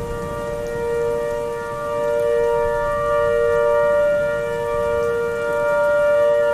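Synthesized outdoor warning siren holding a steady two-tone chord at full speed, its loudness swelling and fading slowly as if the horn were rotating. A low rain-like noise runs underneath.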